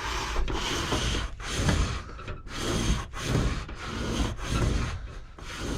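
Wire stripping machine with a new razor blade slitting the insulation of a white wire as it is fed through, a rough scraping in about five or six strokes of roughly a second each.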